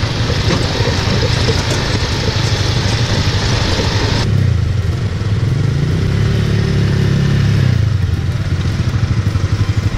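Small off-road ATV and buggy engines running with a steady low drone. A hiss over it stops abruptly about four seconds in. An engine's pitch rises and holds for a couple of seconds, then drops near the eighth second, leaving an even, pulsing engine note.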